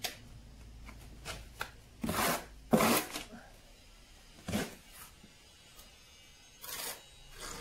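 Short gritty scrapes and rubs of a trowel and hands working sand-and-cement mortar against brick while bedding a concrete padstone, about nine in all, the loudest two to three seconds in.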